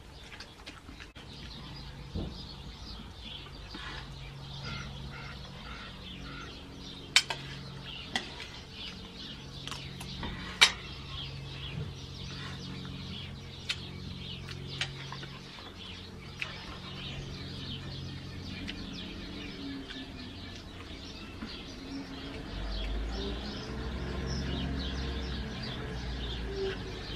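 Chickens clucking in the background, with a few sharp clinks of a utensil against an enamel plate.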